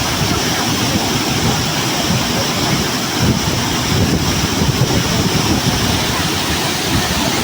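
Waterfall: falling water rushing and splashing in a loud, steady wash of noise.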